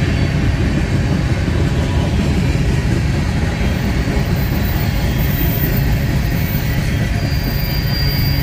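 Train rolling by on the rails, a steady loud rumble of wheels and cars. A faint high wheel squeal comes in near the end.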